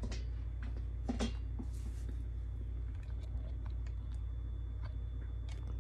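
A steady low hum, with faint rustling and a few light clicks as a person gets up from her seat.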